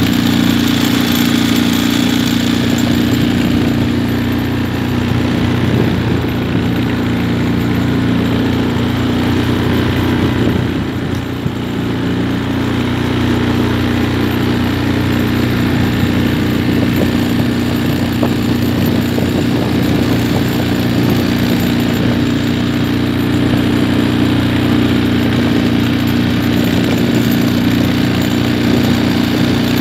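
Small fishing boat's outboard motor running at a steady pitch while the boat is under way, over a constant hiss of wind and water.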